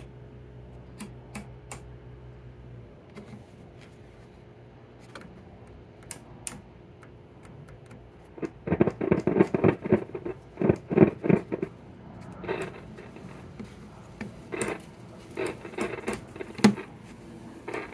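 A low, steady hum from the RCA 813K radio's speaker, the sign of a set that has power but is not receiving; it stops about three seconds in. Scattered sharp clicks follow, then from about eight seconds in, irregular bursts of crackling.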